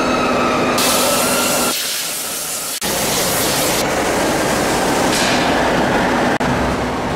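Loud workshop machinery noise: a steady hissing din with a high whine for the first couple of seconds, then changing abruptly several times, with a low rumble under the later part.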